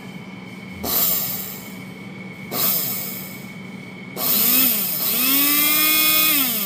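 Small stainless-steel electric blade coffee grinder running empty: two short pulses of the motor, then a longer run of about two and a half seconds whose whine rises as the blade spins up, holds, and falls away near the end as the motor is released.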